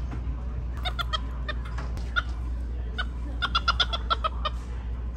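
Short, sharp animal chirps, some single and some in quick runs of three or four, thickest about three and a half to four and a half seconds in.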